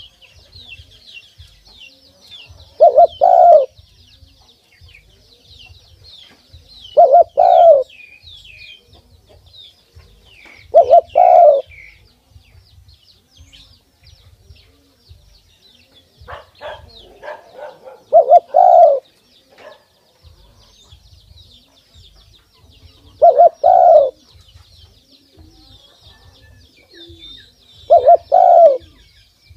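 Spotted dove cooing: a short phrase of two or three notes, given six times about every four to five seconds. Small birds chirp faintly in the background.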